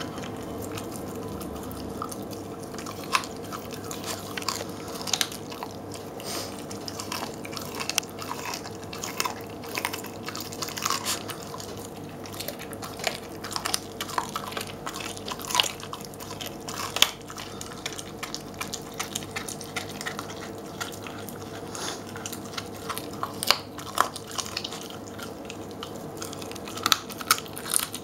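Jack Russell terrier chewing a raw turkey neck, the bone crunching and cracking in irregular sharp snaps and clicks.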